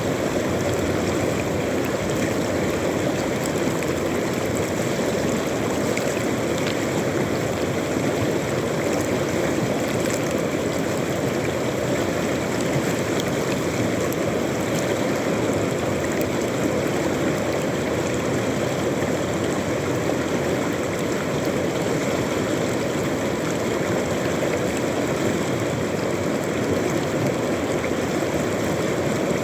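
River water flowing steadily over its bed, a continuous even rush with no breaks.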